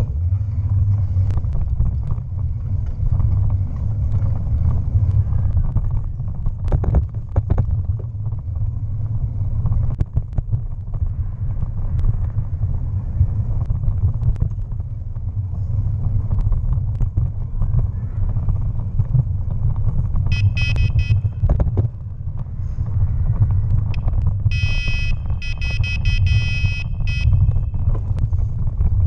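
Steady low rumble of wind on the microphone of a bike-mounted action camera as the bicycle rolls along the towpath. About twenty seconds in a high, rapidly pulsing ring sounds briefly, then again for a couple of seconds near the end.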